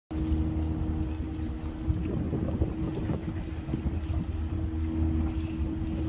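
An engine running steadily at idle: an even low hum with a constant pitch.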